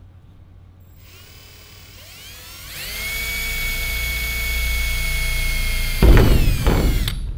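Cordless drill spinning up over a couple of seconds to a steady high whine while drilling a pilot hole in the aluminium fuselage skin. About six seconds in there is a loud rough burst of cutting noise, then the motor winds down and stops.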